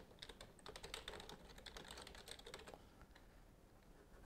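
Faint typing on a computer keyboard: a quick run of keystrokes that stops a little under three seconds in.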